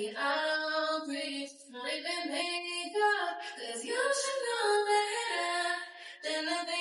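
A woman singing a slow, melodic song, with long held notes that slide between pitches.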